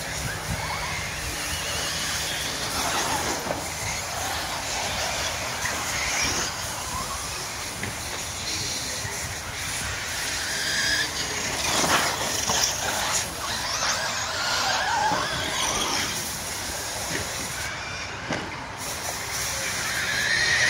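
Radio-controlled truggies racing on a dirt track: several motors whining, rising and falling in pitch as the cars accelerate and brake, over a steady hiss of tyres on dirt, with a few sharp knocks from landings or impacts.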